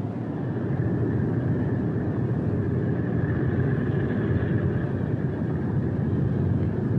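Steady drone of a B-17 Flying Fortress's Wright R-1820 Cyclone radial engines in flight, with a faint steady high whine. The bomber is flying on three engines, with number four feathered.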